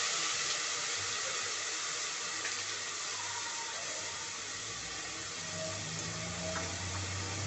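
Ginger-garlic paste and turmeric sizzling in hot oil in an aluminium pressure cooker, a steady frying hiss as the paste is fried.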